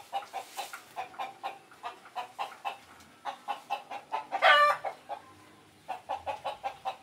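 Chickens clucking in a steady run of short calls, about three a second, with one louder, longer squawk about four and a half seconds in and a short pause after it.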